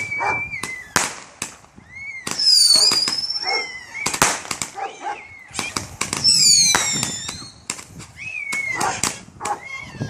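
Roman candle barrage firing: a rapid string of launch pops and reports with crackling, and a high whistle falling in pitch roughly every four seconds.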